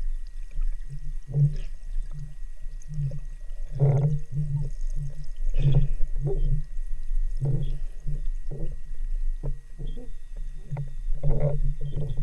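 Muffled underwater knocking and bumping heard through a camera's waterproof housing: a steady run of short, low thuds about twice a second, over a low hum.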